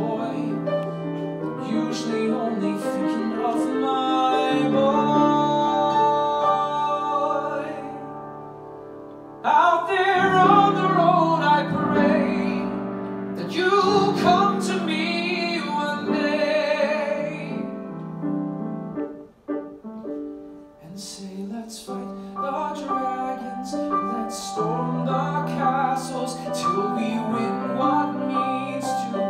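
A man singing a slow musical-theatre ballad into a microphone with piano accompaniment, his held notes wavering with vibrato. The music drops away briefly about two-thirds of the way through, then picks up again.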